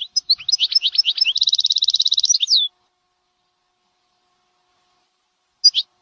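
Canary singing: a quick twittering phrase that runs into a rapid, even trill and stops about two and a half seconds in, followed by a short two-note chirp near the end.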